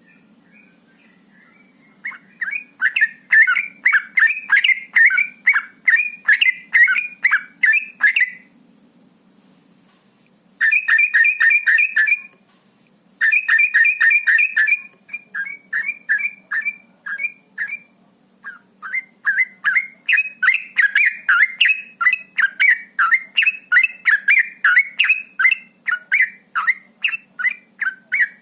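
Yellow-vented bulbul (trucukan) singing its rapid 'ropel' song: fast runs of short chirping notes, about two or three a second, starting a couple of seconds in and breaking off twice briefly before running on continuously.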